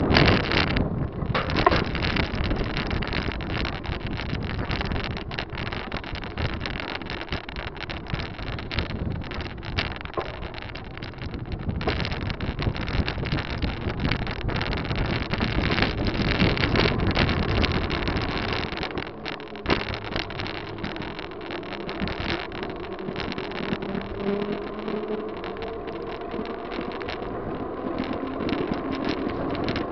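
Wind buffeting the microphone of a camera on a moving bicycle, with rattles and knocks from the bike over the path. A steady hum with a slowly rising pitch joins in about halfway through.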